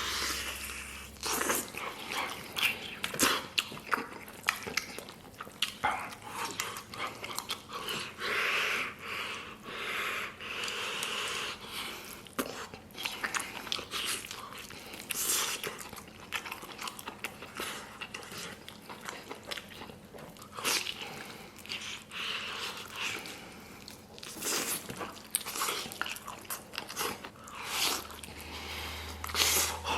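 Close-miked eating: a person biting and chewing soy-braised beef ribs, tearing the tender meat off the bone, with irregular smacking and chewing clicks.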